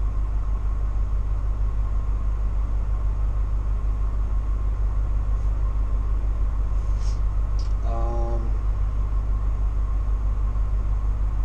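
Parked motor coach's diesel engine idling, a steady low rumble heard from the driver's seat.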